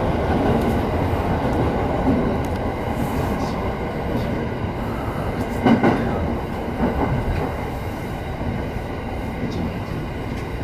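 Electric commuter train's running noise heard from inside the front car: steady motor and wheel-on-rail rumble, with one sharp louder clack from the wheels a little over halfway through.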